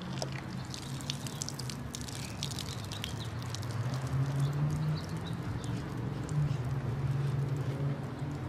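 Wet, irregular squishing and patter of a sudsy wash mitt being scrubbed over a motorcycle's plastic fairing, with a steady low hum underneath.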